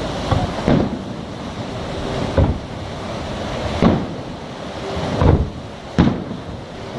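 Fireworks shells bursting: about six deep booms at irregular intervals, each echoing away, over a steady rumble of wind and sea.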